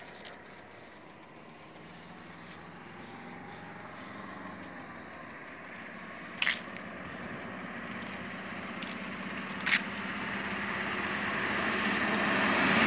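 Vehicle and road noise that grows steadily louder as an oncoming car approaches and draws level near the end. Two short sharp clicks sound over it, about halfway through and again some three seconds later.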